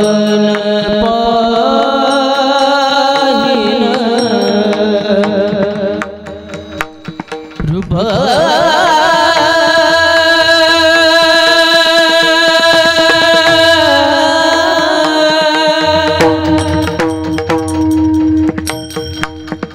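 Marathi devotional abhang sung with tabla accompaniment over a steady drone. About six seconds in the music briefly dips, then the voice slides up into a long, wavering held note.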